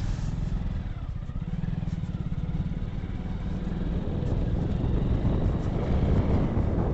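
Hero Super Splendor's single-cylinder engine running as the motorcycle is ridden, a steady low rumble that grows a little louder after about four seconds.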